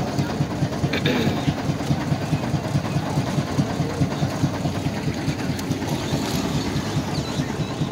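Wooden river boat's engine chugging steadily under way, a rapid even beat of low pulses.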